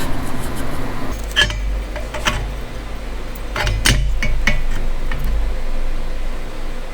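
Scrap sheet metal being handled on a workbench: a few sharp metallic clinks and knocks over a low rumble that comes in about a second in and fades near the end.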